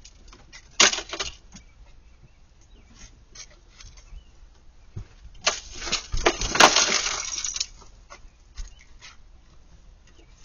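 A sharp knock about a second in, then a burst of crashing and clattering impacts from about five and a half to seven and a half seconds in, with scattered lighter clicks in between.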